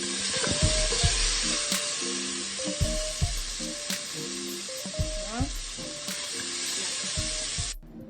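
Green beans frying in garlic butter in a pan, sizzling steadily, with occasional knocks of a stirring utensil against the pan. The sizzle cuts off suddenly near the end.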